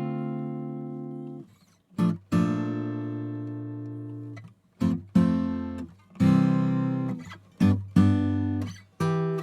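Acoustic guitar strumming chords. The first two chords are left to ring out for about two seconds each, then shorter strums follow in quicker succession.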